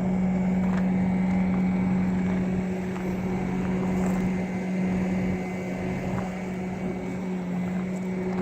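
An engine running steadily at constant speed, a continuous even hum with no change in pitch.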